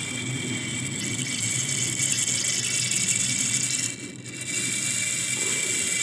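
Aerosol can of carb and choke cleaner spraying through its extension straw into a fuel hose: a steady hiss that stops briefly about four seconds in, then resumes.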